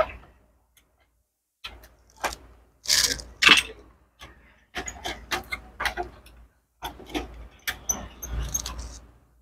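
Hands working on a laser printer's power supply circuit board and the parts around it: a string of irregular clicks, knocks and rattles of plastic and metal, with a short scrape about three seconds in.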